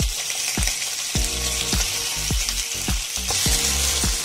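Raw chicken pieces sizzling as they go into hot oil with fried ginger and garlic in a frying pan: a steady frying hiss. Background music with a low beat a little under twice a second runs under it.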